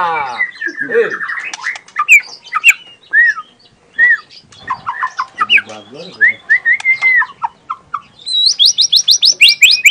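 Young white-rumped shama singing a varied song of loud whistles, slurred and gliding notes and chatter, breaking into a fast run of repeated rising notes near the end: the rapid "tembakan" burst prized in this bird's song.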